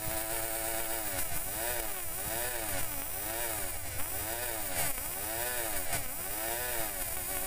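Distributor test bench motor spinning a Toyota distributor at its fourth, top speed setting, a pitched whine. It holds steady at first, then rises and falls in pitch about twice a second.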